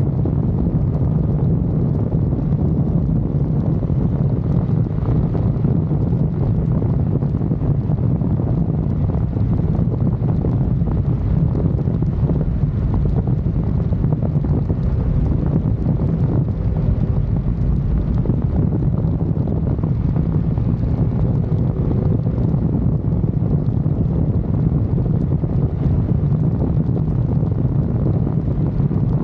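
Steady wind buffeting the microphone, with a heavy, constant low rumble underneath.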